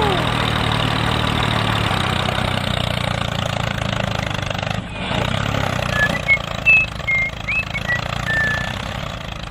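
Mini tractor's engine running steadily, with a few short high chirps over it from about six seconds in.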